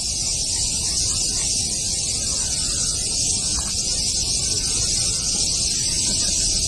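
Steady chorus of cicadas, a dense high-pitched hiss that never lets up, over a low rumble.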